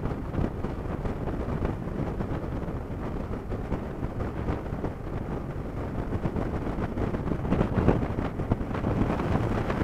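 Motorcycle riding at highway speed: steady wind rush buffeting the microphone over the running noise of the bike and road.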